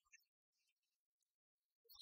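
Near silence: a faint short sound just after the start, then quiet until a new sound begins near the end.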